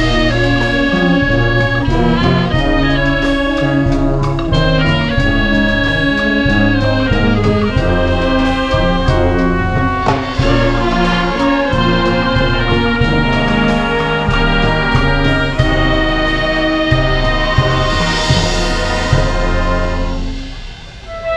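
Brass band playing a tune over a steady low bass line. The music dips briefly near the end, then resumes.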